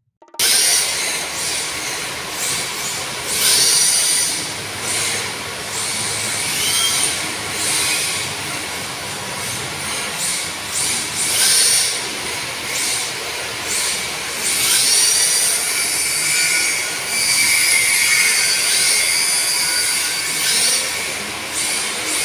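Electric RC drift cars sliding around a polished tile floor: tyres squealing and hissing on the tile as the cars drift, with motor whine rising and falling with the throttle. It starts about half a second in.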